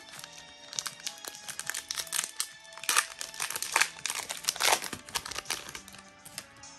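Foil wrapper of a Pokémon trading card booster pack crinkling and crackling as it is torn open, loudest in the middle, over quiet background music.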